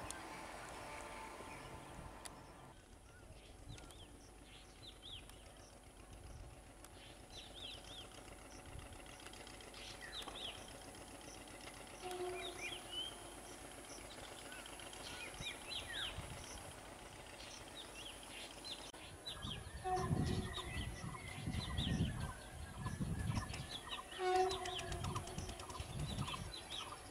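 Small birds chirping over quiet rural ambience. In the last third a low rumble builds as an approaching train comes nearer.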